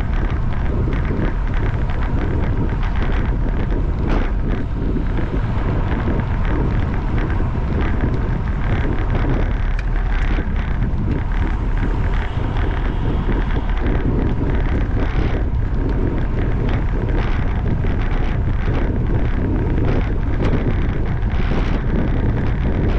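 Steady wind noise buffeting the microphone, with frequent small rattles and clicks throughout.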